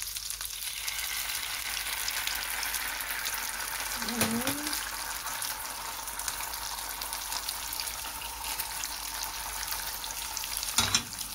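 Melted butter and poured-in soy-and-honey teriyaki marinade sizzling in a hot nonstick frying pan, a steady crackling hiss. A single knock comes near the end.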